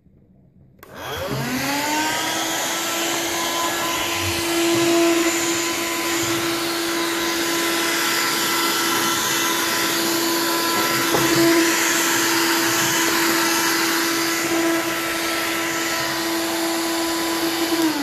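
Hoover Jive cordless handheld vacuum cleaner switched on about a second in, its motor rising quickly in pitch to full speed and then running with a steady whine over a rushing of air, starting to wind down right at the end.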